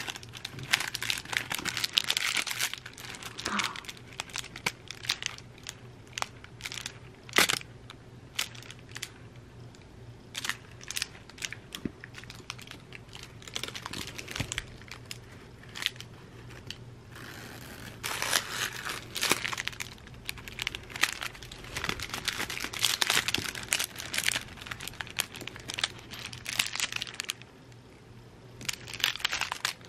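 Crinkly silver foil cat toy with yarn streamers crackling and rustling in irregular bursts as it is poked at a cat and bitten. The crackling is thick near the start and through much of the second half, and sparser in the middle.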